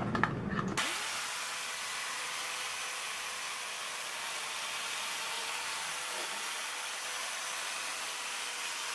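Electric chainsaw attachment running steadily, heard as an even hiss with a faint hum, starting abruptly about a second in.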